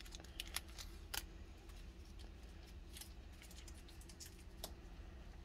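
Protective plastic film being peeled off a wireless-microphone charging case, with faint scattered crinkles and small plastic clicks.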